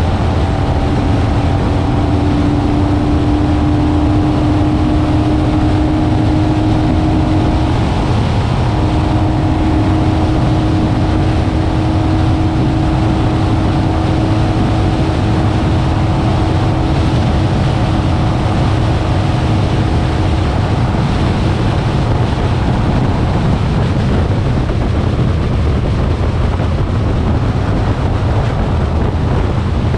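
Kawasaki Vulcan 900 V-twin motorcycle cruising at steady highway speed, its engine drone mixed with loud wind rush on the camera microphone. The steady engine tones fade into the wind noise about twenty seconds in.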